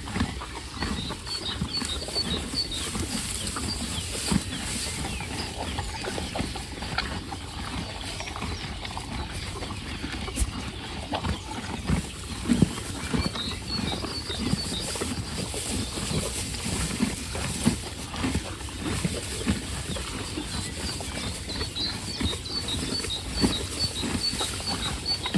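Horses chewing hay: a steady, irregular crunching and munching with now and then a louder crunch.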